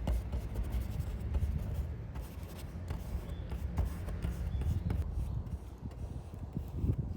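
Bristle brush scrubbing oil paint onto canvas in short, irregular strokes, over a steady low rumble of city background.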